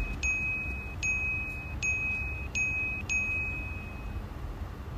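A bright chime sound effect rings six times in an even rhythm, about one a second. Each chime is a short high ping followed by a held ringing tone, over a steady low hum.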